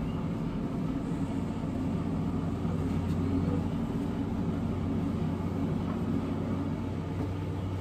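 Pit Boss Lexington 500 pellet smoker's convection blower running, a steady hum, with a deeper hum joining about a second in; a faint clink about three seconds in.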